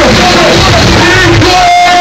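Very loud live hip-hop concert music through a PA, with voices singing and shouting over it from a packed crowd. The bass drops out about a second and a half in, leaving the voices.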